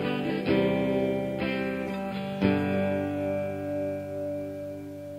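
Closing bars of a song on guitar: three chords struck about a second apart, the last left ringing and slowly fading out.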